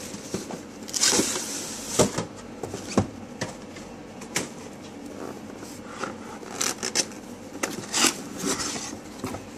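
Cardboard product box being unpacked by hand: the printed sleeve slid off the inner box and the box lid opened, with rubbing and scraping of cardboard and several light knocks.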